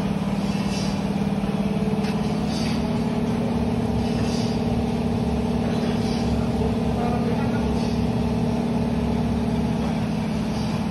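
Ribbon blender powder mixer running empty: the electric motor, belt drive and gearbox give a steady hum, with a faint swish repeating about every two seconds as the ribbon agitator turns in the trough.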